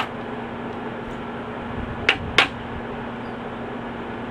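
Hammer striking the end of a flathead screwdriver held against a metal trailer coupler: one sharp tap at the very start, then two more about two seconds in, a third of a second apart.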